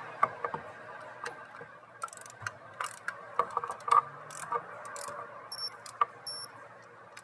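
Irregular metallic clicks of a socket wrench and extension running down the thermostat housing bolts, with two short high-pitched squeaks a little past halfway.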